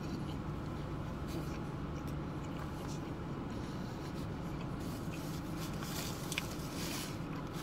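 A person chewing a burger, with small scratchy rustles of the paper wrapper and soft clicks, over a steady low hum.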